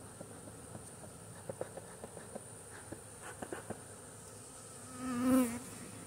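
Honey bees buzzing around an opened hive: short buzzes as bees fly past close by, then one loud, close buzz about five seconds in.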